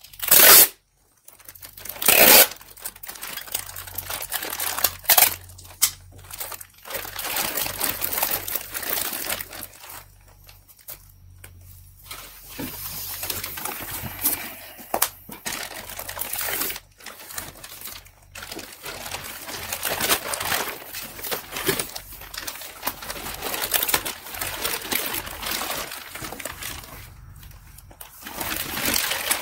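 Plastic bag crinkling and rustling as it is handled and pressed around a wrapped part, with cardboard being shifted. Two short, loud rasping bursts come in the first few seconds.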